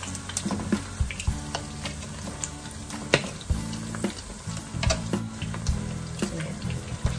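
Boiled pork belly frying in hot oil in a pan, sizzling with frequent sharp spattering pops.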